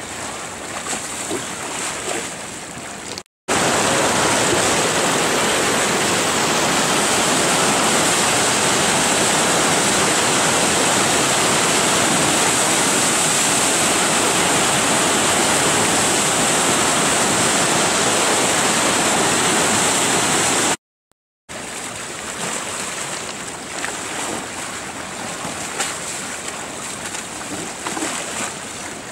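Loud, steady rush of whitewater rapids on a slalom course, starting abruptly a few seconds in and cutting off abruptly about two-thirds through. Before and after it, a quieter, uneven wash of water around a slalom kayak on flat water.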